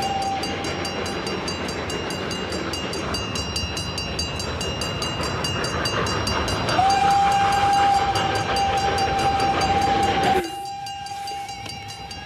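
Steam train passing at speed, its wheels and carriages rattling in a fast, dense rush. The locomotive's whistle sounds one long steady note from about seven seconds in. The rumble drops away suddenly near the end while the whistle carries on more faintly.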